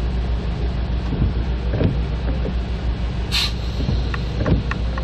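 Inside a car's cabin while stopped: a steady low engine rumble at idle, with the windshield wipers sweeping the rain-wet glass. A short swish comes about three seconds in, followed by a few light ticks.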